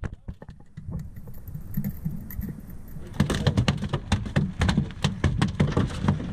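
A freshly landed halibut flopping on a boat's deck: a quick run of slaps and knocks that starts about three seconds in, over a low rumble.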